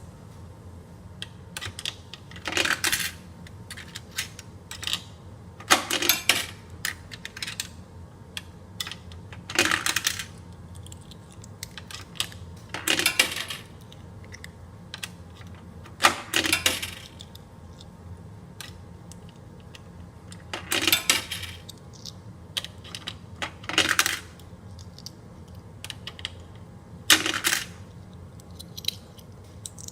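Coins being fed one at a time into the coin slot of an AQUA HCW-5226C coin-operated drum washing machine, each dropping and rattling through the coin mechanism, about every three seconds, with small clicks in between, over a low steady hum.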